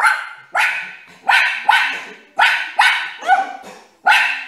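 A brown-and-white dog barking repeatedly at a plush toy dog, about eight loud barks at roughly two a second, each trailing off in room echo.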